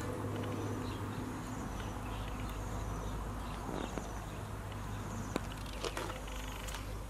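Insects chirping in short, rapidly pulsed high trills that repeat every second or so, over a steady low rumble. A couple of sharp clicks come about five and a half seconds in.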